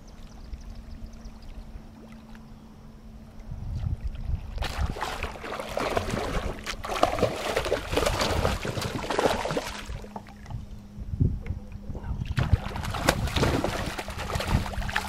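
A bass hooked on a topwater lure, thrashing and splashing at the surface right beside a kayak. The splashing starts suddenly about four and a half seconds in, eases off after about ten seconds, and comes back loud near the end.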